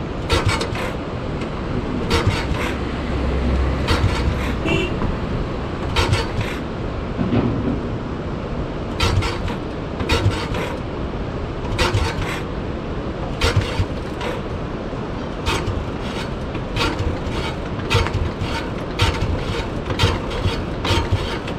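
Motorcycle sounds: a steady low rumble with irregular sharp mechanical clacks, some coming in quick runs. This fits repeated attempts to start a motorcycle that will not start.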